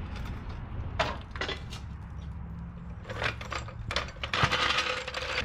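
A steel floor jack being worked and pulled out from under the chassis: a few short bouts of metal rattling and scraping on concrete, over a steady low rumble.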